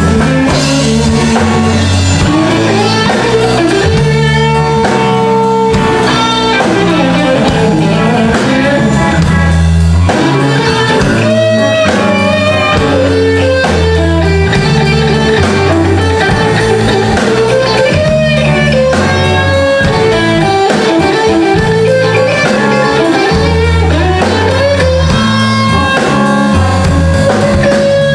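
Live blues band playing without vocals: an electric guitar plays bending lead lines over a repeating electric bass line and drums.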